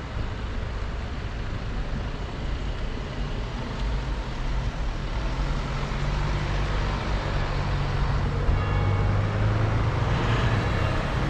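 A police car and then a black BMW limousine drive past on a wet street. Their engines and tyres make a low rumble and tyre hiss that grow louder over the second half.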